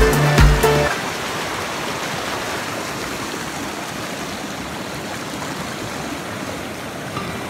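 Music with a heavy beat stops about a second in, leaving the steady rush of a fast mountain river running white over rocks.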